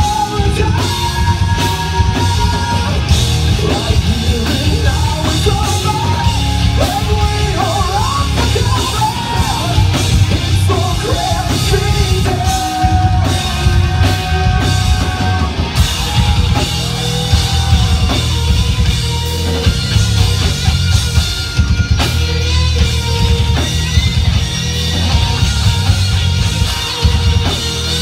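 Live heavy rock band playing loud, with distorted electric guitars, bass and a pounding drum kit. A vocalist sings and yells over it through roughly the first half, then the instruments carry on without vocals.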